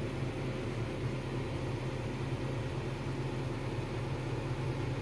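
Excavator's diesel engine running steadily, heard from inside the cab, a low drone with the even hiss of the cab's air-conditioning over it.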